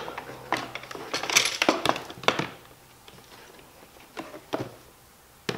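Plastic clips clicking and snapping as the stock front grille is worked free of a C7 Corvette Stingray's plastic front bumper cover, with plastic rattling. A quick cluster of sharp clicks comes in the first two seconds or so, then a few single clicks near the end.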